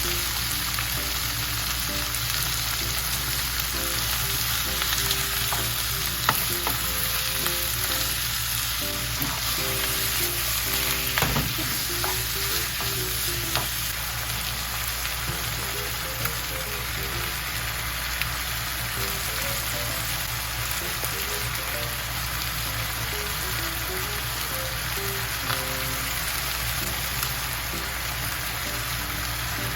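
Food sizzling steadily in a frying pan, with a few sharp pops, over soft background music.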